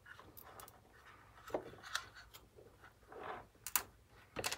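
Faint handling noise of wires and plastic parts inside a small USB mini speaker being pulled apart by hand, as the resin holding its cord is picked off: light rubbing and rustling with a few sharp clicks, the sharpest near the end.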